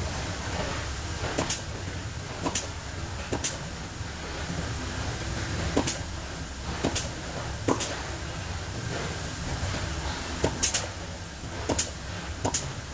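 Hand tools knocking and clicking on dynamo parts during disassembly: about ten sharp, irregular knocks spread over the stretch, above a steady low hum.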